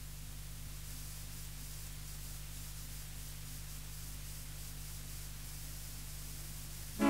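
Steady recording hiss with a low electrical hum underneath: the noise floor of the recording before the song starts. The band's music cuts in right at the very end.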